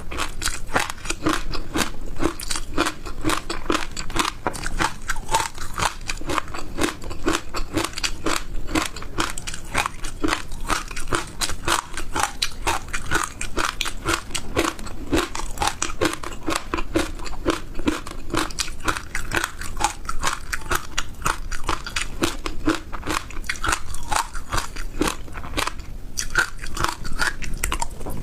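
Close-miked chewing of dry passion fruit seeds: a rapid, unbroken run of crisp crunches.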